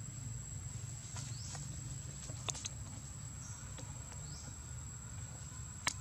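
Steady high-pitched insect drone from the forest. A few short high chirps rise in pitch, about a second in and again past four seconds, and several sharp clicks sound, the loudest just before the end.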